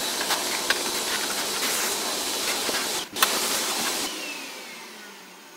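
Vacuum cleaner running, its hose sucking dust out of an open computer power supply, with a few sharp clicks. About four seconds in the motor is switched off and winds down with a falling whine.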